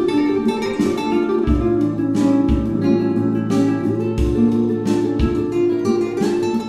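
Background music: laid-back acoustic guitar tune with a steady low beat.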